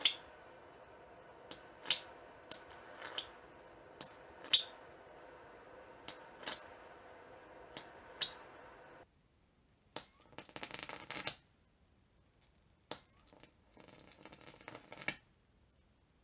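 High-voltage arcs from a TV flyback transformer, driven by a ZVS driver, jumping between the output lead and the ground lead as a series of sharp, short snaps, about ten in the first nine seconds. A faint steady hum lies under them and stops suddenly about nine seconds in. Two more clusters of crackling snaps follow.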